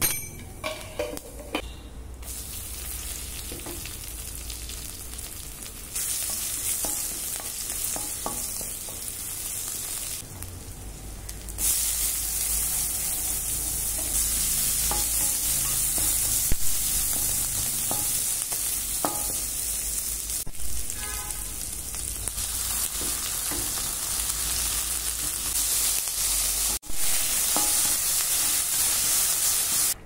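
Spices and chopped onion frying in hot oil in a stainless steel kadai: a steady sizzle that gets louder about six seconds in and again around twelve seconds in. A wooden spatula stirring knocks and scrapes against the pan.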